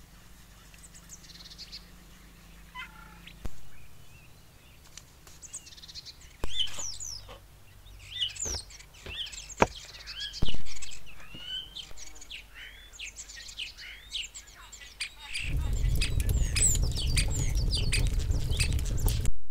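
Songbirds chirping throughout, with a few sharp knocks of a kitchen knife chopping green beans on a wooden cutting board through the middle. Near the end comes a loud, steady low rushing, the sound of an open wood fire burning, which stops suddenly.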